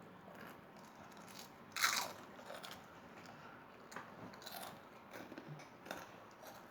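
A person biting and chewing crunchy food, eaten loudly on purpose: one loud crunching bite about two seconds in, then a string of softer crunches.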